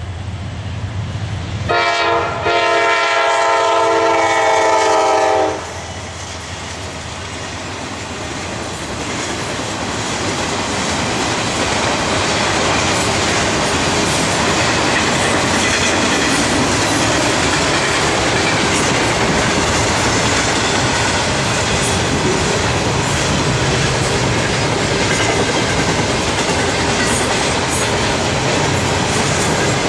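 Freight locomotive air horn sounding for the grade crossing for about four seconds, broken briefly near its start. Then the train's double-stack container cars roll through, wheels rumbling and clicking over the rails, growing louder and then holding steady.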